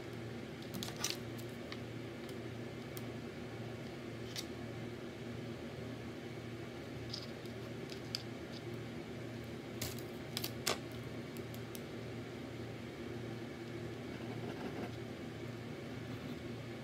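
Light clicks and taps of wooden craft sticks being handled and set down on a tabletop, a few at a time, with the loudest cluster about ten seconds in, over a steady low hum.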